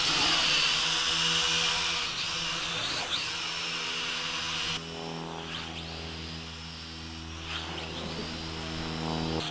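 Small quadcopter's electric motors and propellers buzzing in flight, a steady whine. It drops suddenly to a softer level about halfway through.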